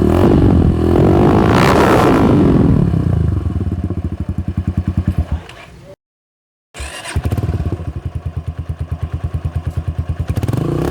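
Yamaha YBR 125 single-cylinder four-stroke motorcycle engine, breathing through an aftermarket exhaust in place of its stock one, revved hard near the start and then settling to an even, rapid thumping idle. The sound breaks off abruptly about six seconds in, resumes at idle, and revs up again near the end.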